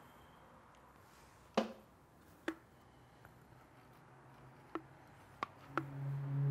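Scattered sharp knocks and clicks of hand tools against metal at a workbench, a handful in all, the loudest about a second and a half in. Near the end a low, steady hum with overtones sets in.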